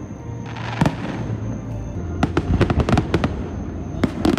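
Aerial fireworks going off: a single bang about a second in, then a rapid run of crackling bursts from about two seconds in.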